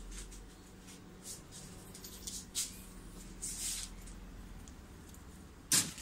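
Light handling noises as wires are prepared: a few short rustles and scrapes, then one sharp click near the end, over a faint steady hum.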